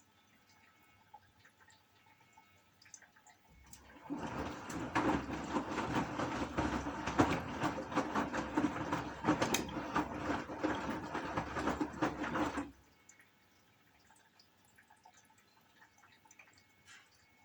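Gorenje washing machine: water rushing and splashing inside the machine for about nine seconds. It starts about three and a half seconds in and cuts off abruptly, with faint drips before and after.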